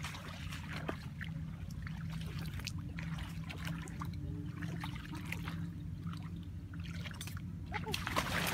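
Shallow muddy water trickling, under a steady low hum, with scattered faint crackles.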